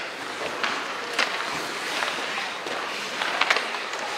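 Ice hockey play: skate blades scraping across the ice under a steady hiss, with several sharp clacks of sticks and puck, one about a second in and a quick cluster past three seconds.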